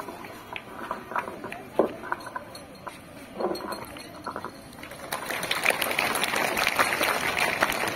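Faint murmur of voices with scattered small knocks, then a group of seated schoolchildren starts clapping about five seconds in, and the applause carries on.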